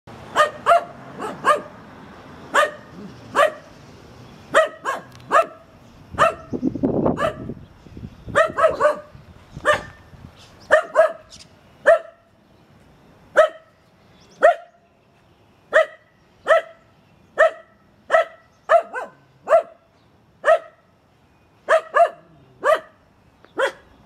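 Finnish Spitz barking at birds in a tree: sharp, high barks repeated about once a second and often in quick pairs, the breed's bark-pointing of treed birds.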